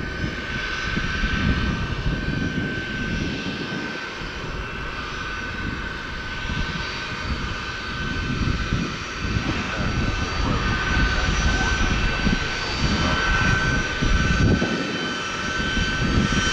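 Jet airliner engines running: a steady high whine over a rumble.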